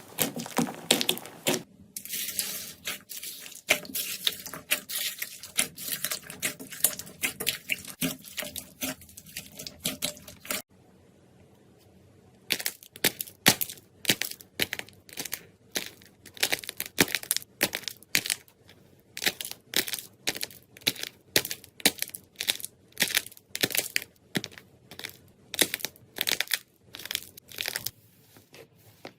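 Hands pressing, squeezing and poking slime, giving dense crackling and popping clicks. A brief quiet gap comes about eleven seconds in, after which the pops fall into a regular rhythm of about two a second.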